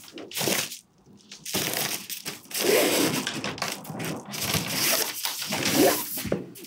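A padded paper mailer crinkling and tearing as it is handled and pulled open, in rustling bursts with a short pause about a second in.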